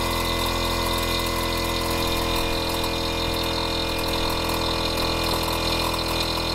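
Air-suspension compressor running with a loud, steady electric-motor drone, heard from inside the car's cabin.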